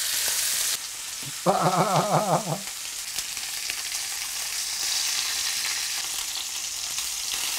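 Lamb chops searing in hot olive oil in a skillet, with a steady sizzle as the pieces are laid in and shifted with tongs. A short, wavering hum about a second and a half in is the loudest moment.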